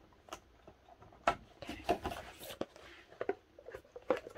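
Handling noise from a hardcover photobook and its box: scattered light taps and clicks as it is lifted out, with a brief rustle about two seconds in.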